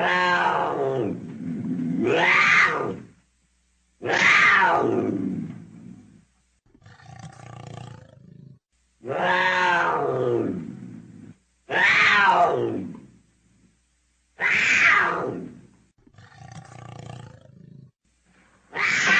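Leopard calling: a series of loud, drawn-out calls, each falling in pitch, one every two to three seconds, with quieter breathy sounds twice in the gaps.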